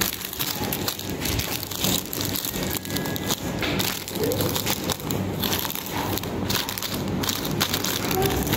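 Plastic-wrapped juice boxes and snack packets being handled and shifted about, crinkling and rustling with many small crackles and clicks.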